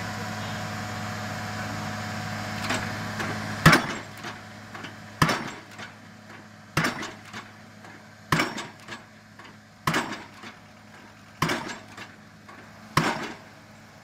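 A 7-tonne hydraulic pile-driving hammer striking a 500 mm PHC prestressed concrete pile: seven heavy blows about one and a half seconds apart, starting about four seconds in, each followed by a smaller clank. Before the blows the rig's engine runs with a steady hum.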